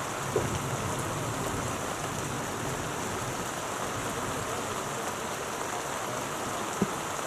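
Heavy rain falling steadily, an even hiss of drops. Two brief sharp taps stand out, about half a second in and near the end.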